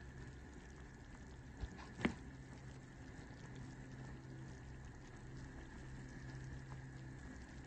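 Pot of chicken in broth boiling, a steady low bubbling over a constant low hum. A light knock and then a sharper clink come about one and a half to two seconds in.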